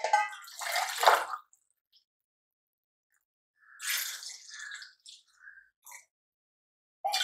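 Water poured from a cup into an aluminium pressure cooker of mutton masala gravy, splashing into the liquid. There is one short pour about a second in and another near the middle.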